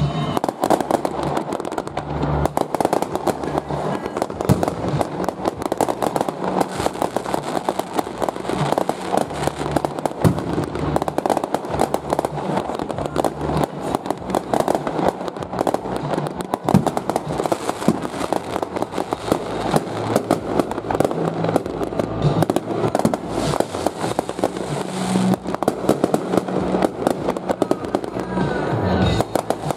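Fireworks going off in a continuous, rapid run of crackling pops and bangs, many per second, without a pause, from ground fountains, rising comets and crackling stars.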